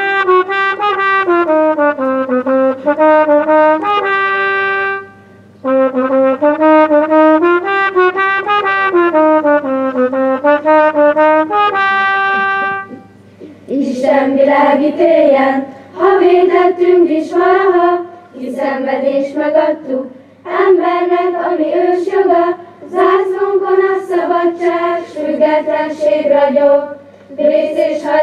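Brass-sounding instrumental tune played in two phrases, each ending on a long held note. About halfway through, a choir of children's voices takes over, singing a melody.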